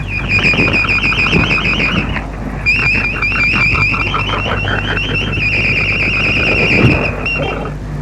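Shortwave radio station interval signal, apparently Radio Baghdad's before its German service: a high, fast-warbling electronic tone in repeated phrases, with a brief break about two seconds in. Steady hum and noise of shortwave reception lie underneath.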